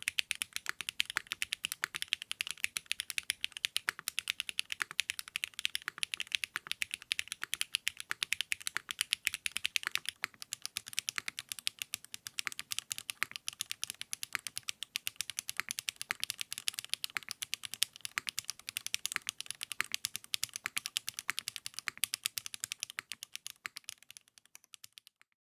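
Fast, continuous typing on a custom mechanical keyboard with 80Retros x HMX KD400 switches: a dense, even stream of key clacks that stops suddenly about half a second before the end.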